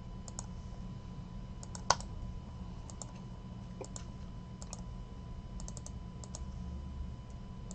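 Scattered clicks of a computer mouse and keyboard, a dozen or so at uneven intervals, the loudest about two seconds in, over a low steady hum.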